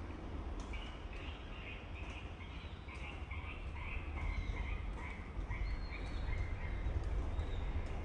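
Swiftlet calls: a rapid, repeated twittering chirp, over a steady low rumble of wind on the microphone.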